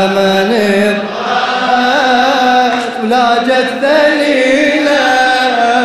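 Young man's voice chanting a Husseini lament: a drawn-out melodic line of long held notes that bend and ornament in pitch, with a brief dip about a second in.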